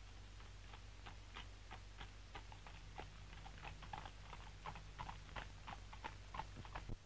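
Light, irregular crackles and clicks of newspaper being handled by hand, a few each second, over a steady low soundtrack hum that cuts off near the end.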